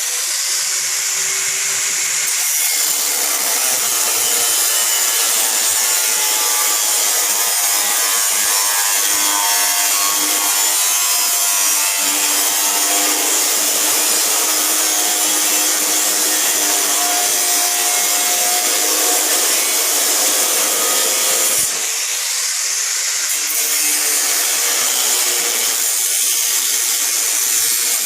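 Handheld power tool running steadily under load with a continuous abrasive hiss, as in grinding or cutting during fender fabrication. It drops back briefly about 22 seconds in, then carries on.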